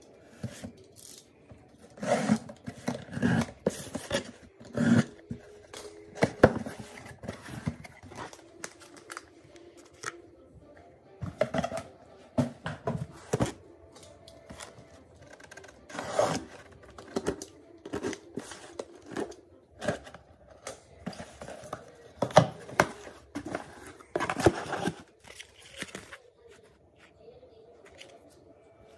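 A cardboard shipping box being opened and unpacked by hand: tearing, scraping and knocking of cardboard and packaging in irregular bursts.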